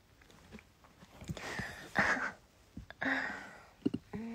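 A woman's soft, breathy exhales, two or three of them, close to the microphone, with a brief voiced sound near the end.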